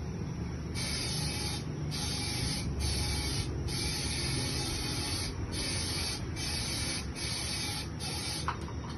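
Compressed-air powder-coating spray gun hissing in repeated bursts with short breaks as the trigger is released, over a steady low hum.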